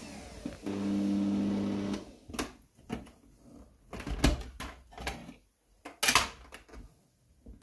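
Bosch stand mixer's motor humming steadily, then stopping about two seconds in as it is switched off after whipping eggs and sugar. Then a run of hard plastic clicks and knocks as the clear splash guard is taken off the bowl and set down on the glass hob, the loudest about six seconds in.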